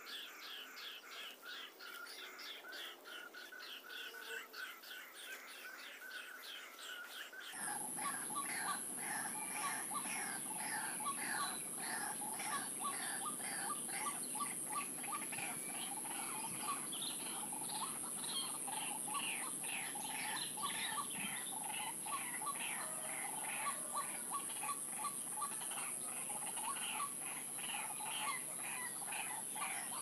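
Rapidly repeated bird calls, white-breasted waterhen (ruak-ruak) calls played back from an mp3 as a trapping lure. About seven seconds in the calls grow louder and a steady high whine joins them.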